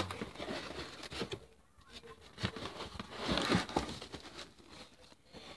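Paper leaflets and packaging rustling and crinkling as they are handled, with a few small taps and clicks, busiest near the start and again around the middle.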